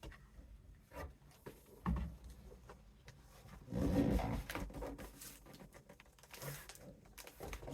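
Crafting handling noises: a paper gift bag and plastic parts rustling and tapping as they are pressed and glued, in scattered short bursts, with a louder rustle about four seconds in.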